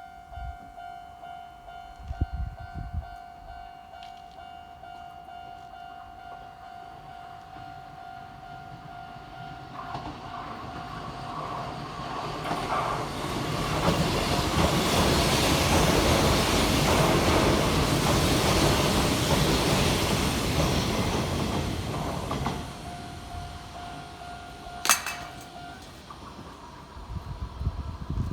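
Japanese level-crossing alarm ringing steadily, then an electric train passes over the crossing: the rush of its wheels on the rails builds to the loudest part in the middle and fades away. The alarm rings on after the train and stops about three-quarters of the way through, just after a sharp knock.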